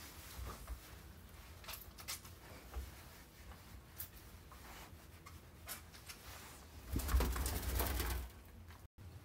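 Wet chamois rubbing over a dog's wet coat in a bathtub: soft, scattered rubbing and handling sounds, louder for about a second around seven seconds in.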